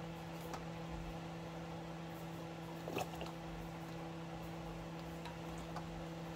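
Steady electrical hum from a kitchen appliance, with a few light clicks and taps of a baster against a stainless steel pot, the clearest about three seconds in.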